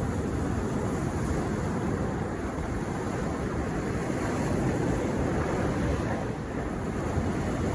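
Ocean surf breaking on a sandy beach: a steady, low, rushing roar of waves with no single crash standing out.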